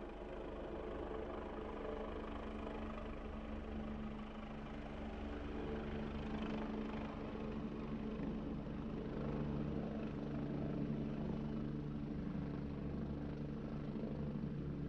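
Helicopter landing, its engine and rotors running steadily with a low rumble under a constant engine tone.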